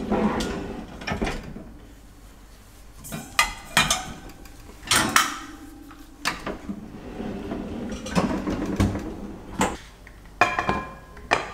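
Kitchen corner cabinet opened and its pull-out wire basket unit slid out, metal baskets rattling and clunking, then pans clinking and a pan set down on the hob: a string of separate knocks and clatters, some with a short ring.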